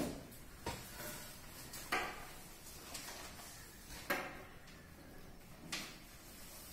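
A large black plastic sheet being handled and shifted on a desk: several sharp knocks, about one every second or two, with rustling between them.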